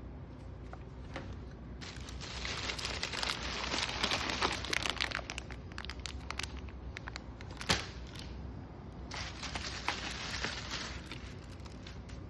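Plastic or paper packaging crinkling as it is handled, in two spells, the first longer, with one sharp click between them.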